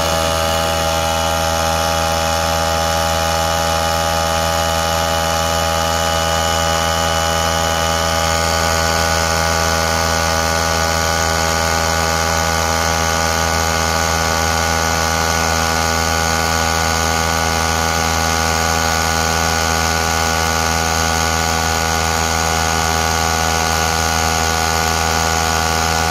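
Tata-branded portable car tyre inflator's small electric compressor running with a steady, even hum as it pumps up an under-inflated car tyre, working against the rising tyre pressure.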